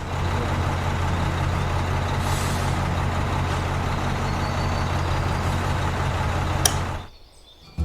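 Heavy engine running steadily with a deep, even hum, then cutting off shortly before the end.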